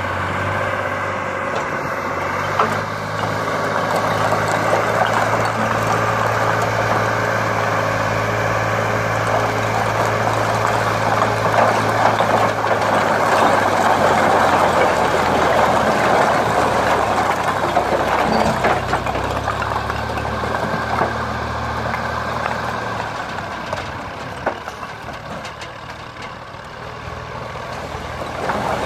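Massey Ferguson tractor's diesel engine running steadily as its hydraulic tipping trolley raises, with a dense clatter of bricks sliding and tumbling off the tipped bed. The clatter is loudest around the middle and dies down near the end.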